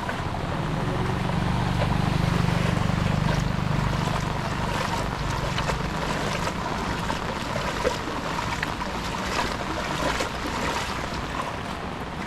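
A motor vehicle moving through floodwater on a road. A low engine rumble swells over the first few seconds and then eases, over a steady wash of water, with scattered short sharp sounds later on.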